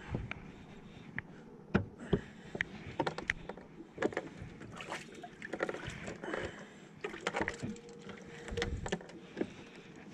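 A freshly caught largemouth bass flopping on a boat's carpeted deck: irregular thumps and slaps, mixed with knocks and rustling from handling the fish and tackle.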